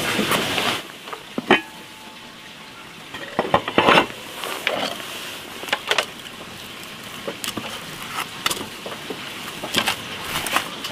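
Food frying in a pan, with scattered clicks and scrapes of a utensil against it. Louder for about the first second, then quieter.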